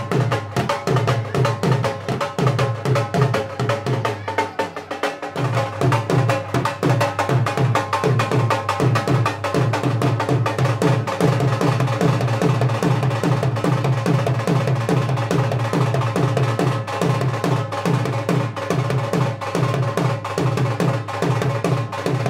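Dhol drum played live in a fast, steady beat, with a brief break in the deep strokes about five seconds in.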